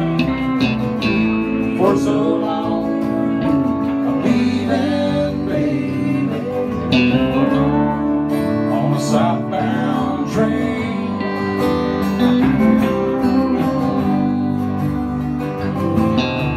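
Live band playing an instrumental guitar break: an electric guitar lead with bending notes over strummed acoustic guitar and a steady beat.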